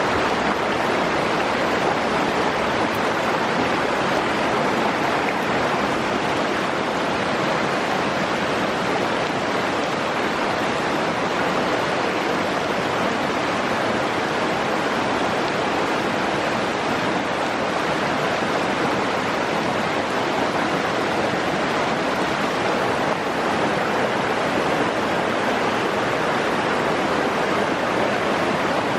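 Stream water rushing, a loud, even, unbroken wash of flowing water.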